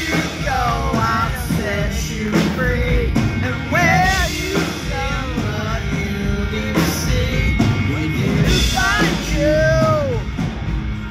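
Live rock band: a male lead voice singing a melodic line over electric guitars and a drum kit, with cymbal crashes now and then.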